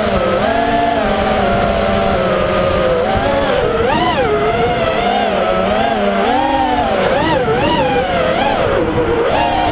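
FPV quadcopter's brushless motors and propellers whining, the pitch swinging up and down over and over with the throttle. Near the end it dips, then climbs to a higher, steadier pitch.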